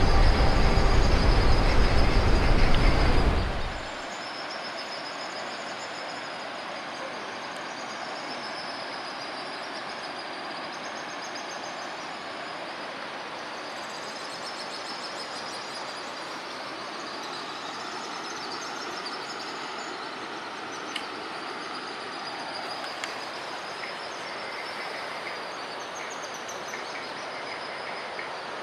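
Background music that stops about three and a half seconds in, followed by the steady hiss of rain falling, with faint high chirps above it.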